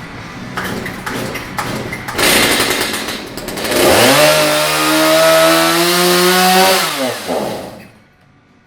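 Stihl MS 290 56cc two-stroke chainsaw sputters and catches. It revs up and runs fast and steady for about three seconds, then winds down and dies about eight seconds in. The owner takes this for a fuel problem.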